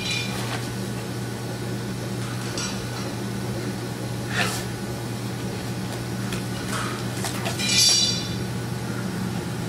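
Disposable protective gloves being worked onto the hands: a few short rubbery rustles and snaps, with a louder stretching squeak about eight seconds in, over a steady low hum.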